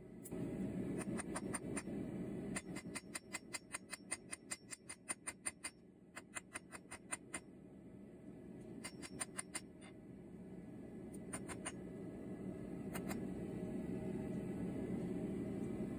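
Hand hammer striking a hot steel blanket pin on an anvil: runs of quick, light ringing taps, about five a second, broken by short pauses. A steady low rushing noise runs underneath and grows louder toward the end.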